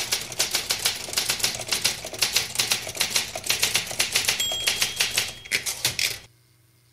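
Typewriter keys clattering in a fast, steady run of sharp clicks, about seven or eight a second, with a brief ringing tone about four and a half seconds in; the typing stops suddenly near the end.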